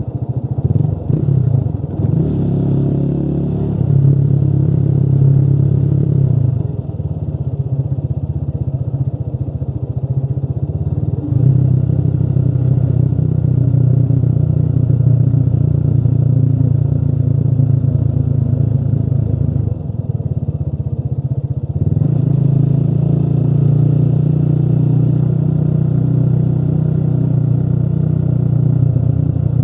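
Motorcycle engine running while riding, its pitch stepping up and down a few times as the throttle opens and closes.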